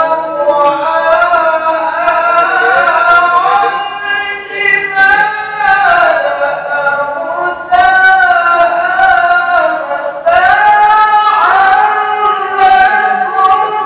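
A man reciting the Quran in the classical melodic tilawah style through a microphone, holding long high ornamented phrases with pitch glides. He draws breath and starts new phrases about eight and about ten seconds in.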